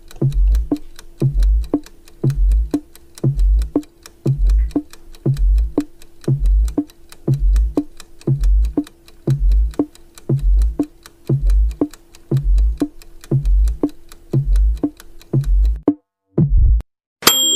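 Electronic countdown-timer music: rapid even ticking over a held tone, with a deep bass thump about once a second. It stops near the end, and a short bright chime follows as time runs out.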